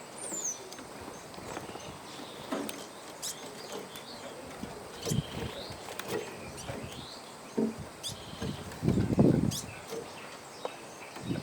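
Small birds chirping, with short high calls that slide down in pitch and repeat every second or two. Scattered soft knocks and a louder, brief flurry of rustling about nine seconds in.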